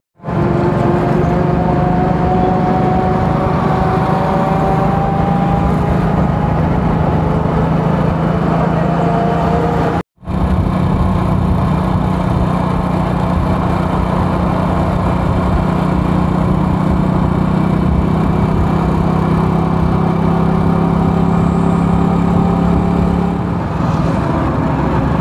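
A vehicle's engine running steadily on the road, with road and wind rumble. The engine note climbs slowly for the first several seconds. The sound cuts out for a moment about ten seconds in.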